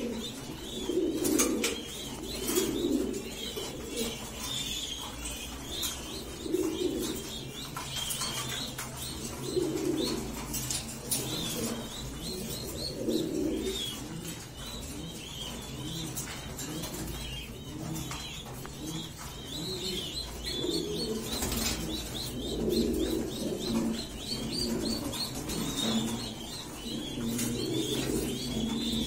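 Stencil fancy pigeons cooing, low coos repeated every second or two, while squabs in the nest bowl give runs of rapid high squeaks as they beg and are fed. Wings flap and rustle now and then.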